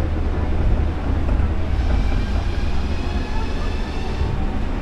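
Osaka Monorail train running along its elevated guideway, heard inside the front of the car: a steady low rumble, with a faint high whine of several tones joining about two seconds in and fading out near the end.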